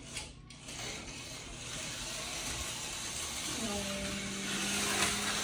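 HO-scale TYCO slot car running on the plastic track, its small electric motor and pickups giving a steady whir that grows louder toward the end.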